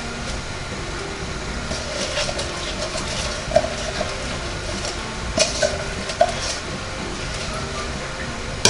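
Steady running hum of a NuWave Bravo XL convection toaster oven's fan. A few soft clicks and rustles of food being handled on a board come over it, about three and a half, five and a half and six seconds in.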